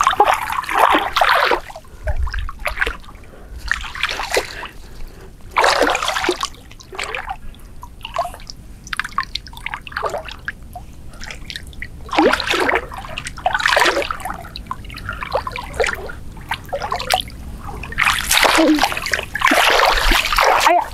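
Shallow water splashing, sloshing and trickling in irregular bursts as a person wades and gropes by hand through the water and bank grass.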